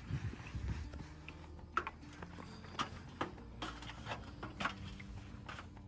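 Irregular light knocks and clicks, about six spread over several seconds, over a faint low steady hum.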